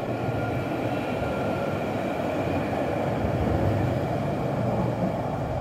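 Alstom Citadis 403 NG electric tram passing close by at low speed: a steady rolling rumble of wheels on rails, with a whine of a few steady tones in the first couple of seconds that then fades.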